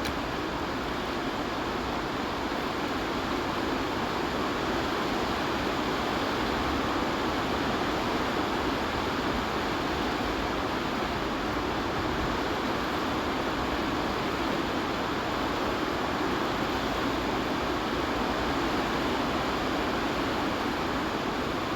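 Steady, even rushing noise with no distinct events, holding at an unchanging level.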